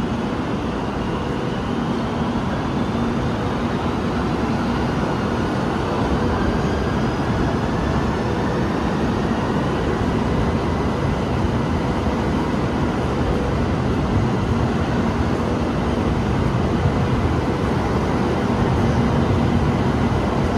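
Subway train running, heard from inside the car: a steady rumble of wheels on the track with a low electric hum. A faint motor whine rises in pitch during the first half.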